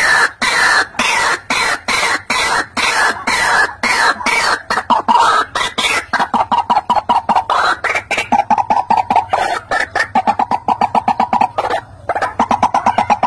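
White-breasted waterhen calling continuously: a loud, rapid series of harsh croaking notes. About halfway through they settle into a fast, even run of short notes, broken by a brief pause near the end.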